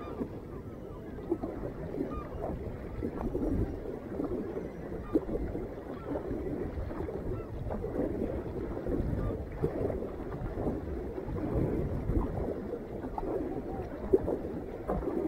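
Water splashing and lapping around a sea kayak as it is paddled, an uneven rushing that rises and falls with the strokes. Two short sharp knocks stand out, about a third of the way in and near the end.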